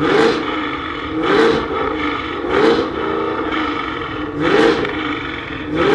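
A car engine revved hard in short blips, about five times, each climbing quickly in pitch and falling back to idle between.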